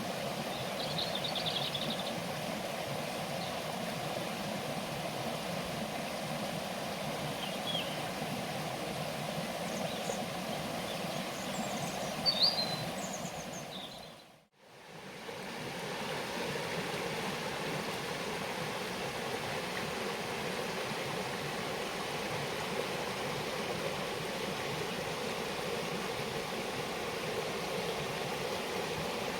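Steady rushing of running water, with a few short high chirps in the first half. The sound fades out and back in about halfway through.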